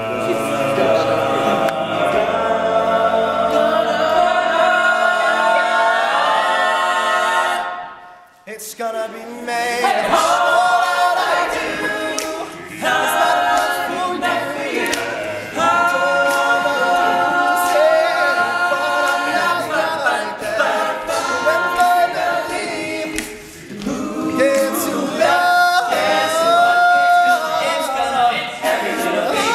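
All-male a cappella group singing a pop song in harmony, voices holding sustained chords. The voices cut out briefly about eight seconds in, then the singing comes back in.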